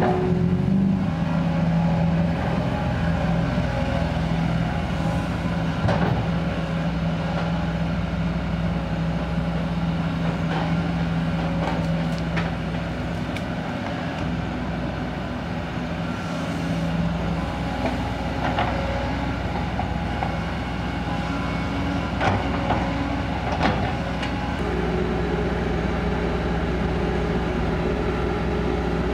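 Kobelco SK200 hydraulic excavator's diesel engine running steadily while digging and loading soil, its note shifting a few times as the hydraulics work, with several sharp clanks spread through.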